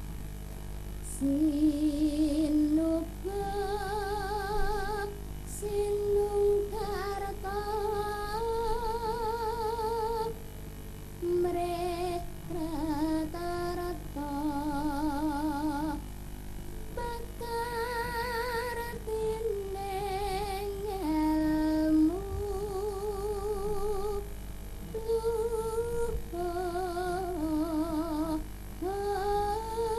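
Female sinden singing a Javanese song into a microphone, a string of held notes that waver with vibrato and slide between pitches in ornamented phrases, with short breaths between them.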